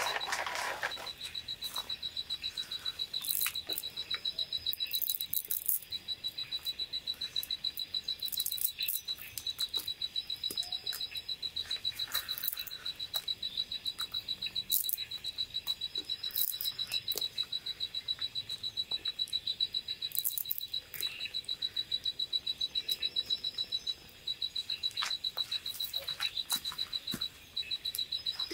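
A night-calling animal gives a fast, high-pitched pulsing trill that runs on in long stretches with brief breaks. Scattered sharp crackles from the burning wood fire sound over it.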